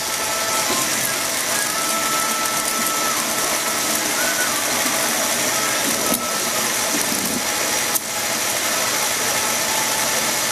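E-bike drivetrain running on a stand: the motor-driven rear wheel spins with a loose new chain running through the cassette and Shimano rear derailleur, a steady whir with faint tones. A couple of short clicks come about six and eight seconds in.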